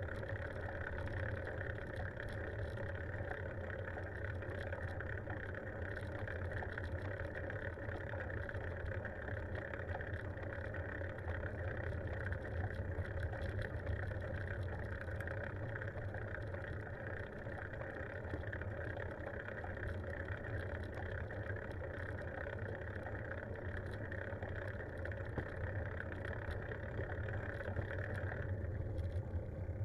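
Steady riding noise of a bicycle rolling along an asphalt road: a low rumble of wind on the microphone and tyre noise with a hiss above it. The higher hiss drops away sharply near the end.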